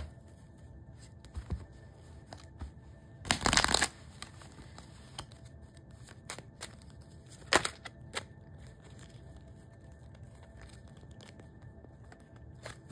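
Deck of cards being handled and shuffled: a short rustling shuffle a little over three seconds in, then a sharp card snap and a few light taps, with quiet room tone between.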